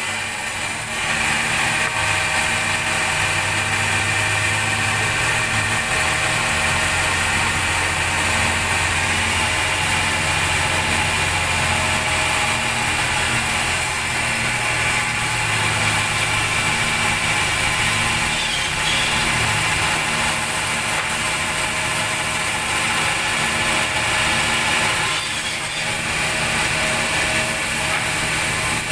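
Band sawmill machinery running steadily, a low hum under a higher whine, with the saw not cutting.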